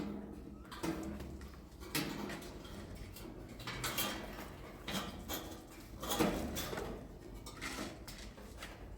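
Irregular clinks and scrapes, a few sharp knocks a couple of seconds apart, the strongest about six seconds in, over a low steady hum.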